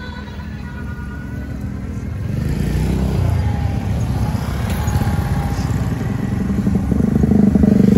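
A vehicle engine running close by, getting steadily louder from about two seconds in.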